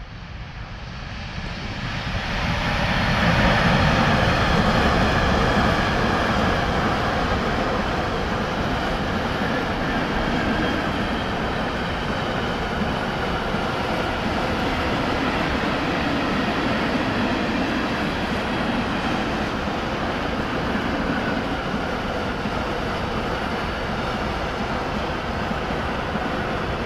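Freight train hauled by a Bombardier Traxx electric locomotive passing close by: the noise swells over the first three seconds as the locomotive goes by, then settles into a steady rolling rumble of loaded tank wagons on the rails.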